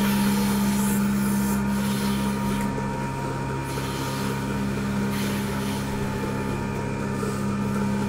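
Milking machine system running with a steady low hum while the steel teat cups are fitted to a cow's udder, with rubbing and handling noise on top.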